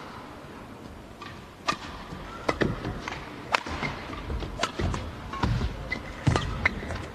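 Badminton singles rally: crisp racket strikes on the shuttlecock about once a second, with the players' footsteps thudding on the court between them.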